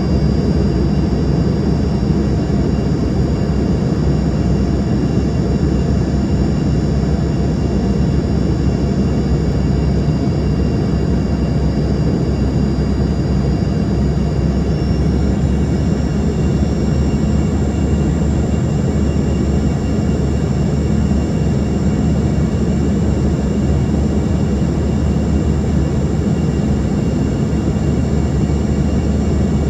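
Cabin noise of an Embraer ERJ-145 in flight: the steady rush of its rear-mounted Rolls-Royce AE3007 turbofans, with high engine whines. About halfway through, the whine steps up in pitch as the engines' thrust changes.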